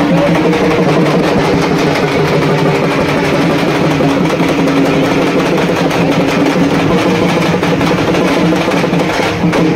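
Loud music: rapid drumming over steady held tones.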